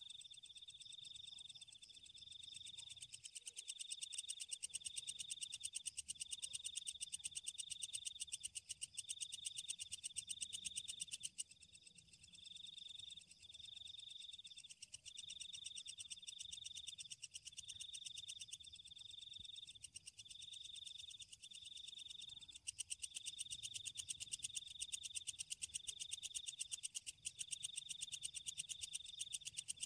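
Night chorus of insects and frogs: a high, fast-pulsing trill with a high call repeating about once a second. The chorus dips briefly about twelve seconds in.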